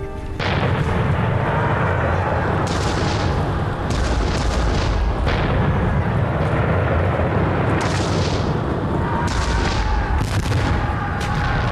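Battle sound of muzzle-loading cannon and musket fire: a sudden start about half a second in, then a continuous low rumble with sharp shots every second or two.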